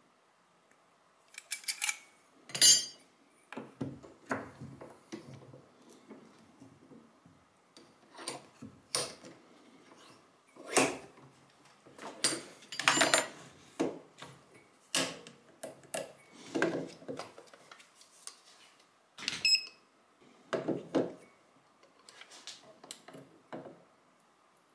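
Irregular metallic clicks, clinks and knocks of a Stgw. 57 rifle trigger housing being handled and clamped in a bench vise, with one sharper knock about three seconds in.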